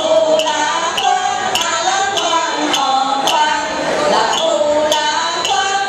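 A small group of young voices singing a Vietnamese song together through microphones, holding notes in a melody, with a light tick about twice a second.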